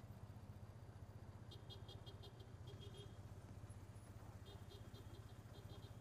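Faint motorcycle engine idling steadily at a standstill, a low, even pulsing. Two short runs of rapid high chirps come in about a second and a half in and again about four and a half seconds in.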